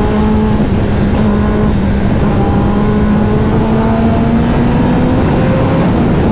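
Kawasaki sportbike engine pulling steadily in one gear at highway speed, its pitch rising slowly as the bike gains speed. The exhaust is fitted with a dB killer.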